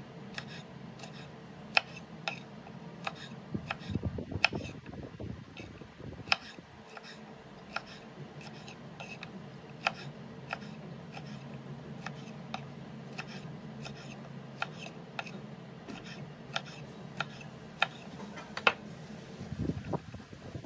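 Kitchen knife slicing French beans on a bamboo cutting board: a regular series of sharp knocks, about two a second, over a steady low hum. Near the end the cut beans are swept and gathered across the board.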